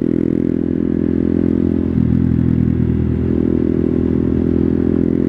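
Honda Grom's 125cc single-cylinder engine running at fairly steady revs while the bike is ridden. The note briefly breaks about two seconds in, then settles again.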